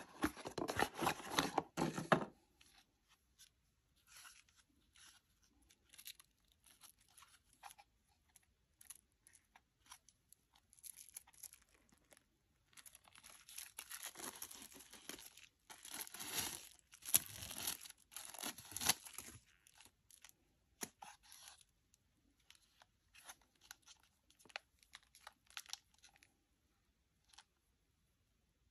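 Cardboard packaging torn open, the loudest stretch in the first two seconds, then a longer spell of crinkling and tearing as plastic wrapping comes off a spool of speaker wire, with faint scattered rustles and clicks of the wire being handled in between and afterwards.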